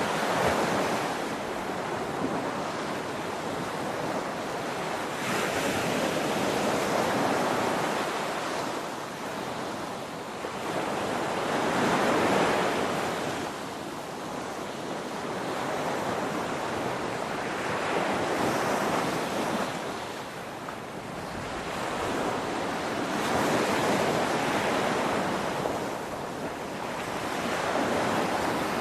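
Ocean surf: waves breaking and washing in, swelling to a rush about every six seconds with a steady hiss between.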